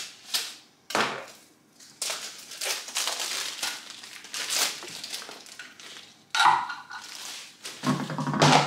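Plastic packaging crinkling and being peeled off new cookware lids, with sharp knocks of glass lids and pans set down on a wooden worktop.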